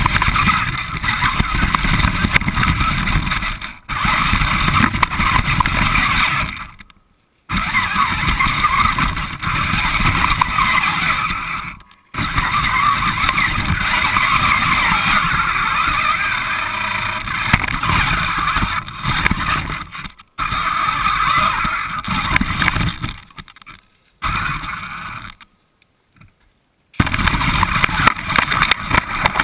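A radio-controlled car driving, heard from on board: a steady whine from the motor and gears over a rumble of wheels on rough ground. The sound cuts off abruptly several times and starts again.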